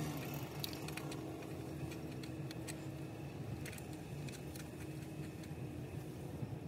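Small metallic clicks and ticks, with the rustle of a cable coil, as threaded antenna cable connectors are screwed onto the back of a car stereo head unit, over a low steady hum.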